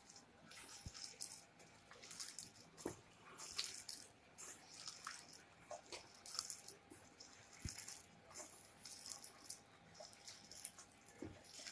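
Faint wet squishing of boiled potatoes being mashed by hand in a stainless steel bowl, coming in irregular bursts, with a few soft knocks.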